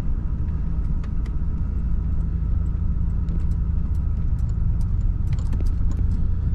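A motor vehicle driving, giving a steady low engine and road rumble with scattered light clicks and rattles.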